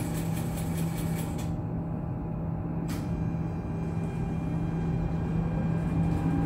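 Interior of a Duewag MGT6D low-floor tram running, with a steady low hum and a few clicks. From about five seconds in, the traction drive's whine rises in pitch and gets louder as the tram picks up speed.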